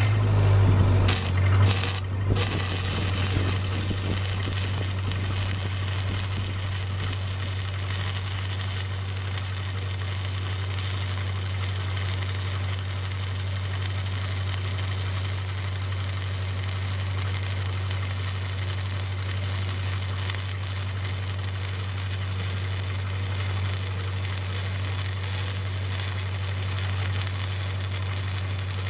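Shielded metal arc (stick) welding: a 5/32 8010 electrode's arc crackling and hissing steadily while a second rod is fed in as filler. The arc catches with a couple of brief stutters in the first two seconds, then runs evenly, over the constant low hum of the engine-driven welder's engine.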